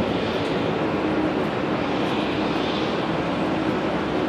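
Boeing 747-400ERF freighter's jet engines running at low thrust as it taxis: a steady, even jet rumble and hiss with a faint steady hum underneath.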